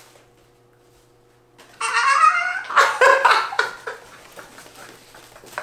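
A man's excited, high-pitched squeal breaking into laughter about two seconds in, after a quiet stretch with a faint steady hum, then going on in short pulses.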